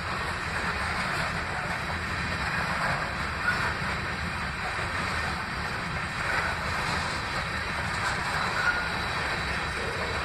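Freight train cars, covered hoppers and then autoracks, rolling past with a steady rumble and rattle of steel wheels on rail. There are a few brief squeaks.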